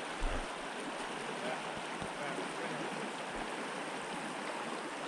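Steady rush of a shallow, fast-flowing mountain stream running over rocks.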